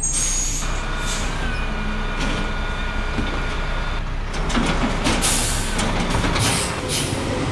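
Garbage truck sound effect: the truck's engine runs steadily, with short bursts of air hiss about five to seven seconds in.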